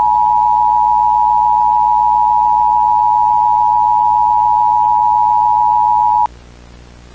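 Emergency Alert System attention signal: two steady tones a little apart in pitch sounding together, loud and unwavering. It cuts off suddenly about six seconds in, leaving a faint hiss.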